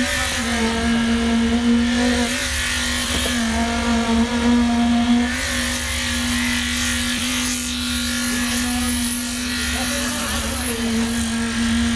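Concrete needle (poker) vibrator running, a steady high hum that sags briefly a few times as the needle works in the fresh concrete, over a low engine rumble.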